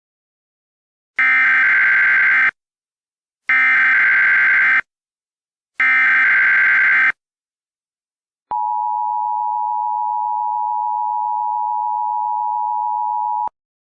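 Emergency Alert System SAME header: three short bursts of digital data tones about a second apart, followed by the two-tone EAS attention signal held steady for about five seconds.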